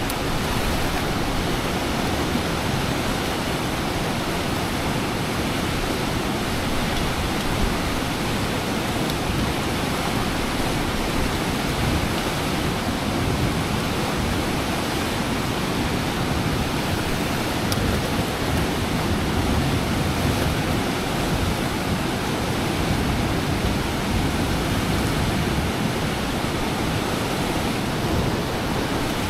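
Steady, even rush of fast water pouring through a dam and down the river.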